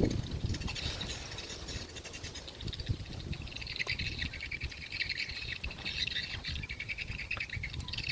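Small birds chirping and twittering, busier from about four seconds in, over low rustling and scattered soft knocks.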